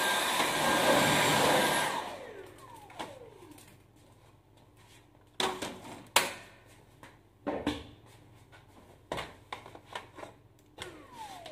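Cordless Dyson-style stick vacuum running, then switched off about two seconds in, its motor whining down in pitch. After that come a series of plastic clicks and knocks as the wand is taken off and a crevice tool is fitted, with one more brief falling whine near the end.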